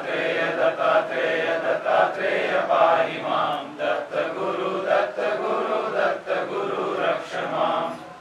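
Devotional chanting: voices intoning a prayer in a continuous run of sung syllables, which stops abruptly near the end.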